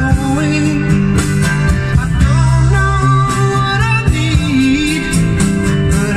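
A guitar song with singing, played loud through a BMW M6 Gran Coupe's Bang & Olufsen car stereo, whose front mids and tweeters are Focal replacements. It is heard from inside the cabin, with a strong, steady bass.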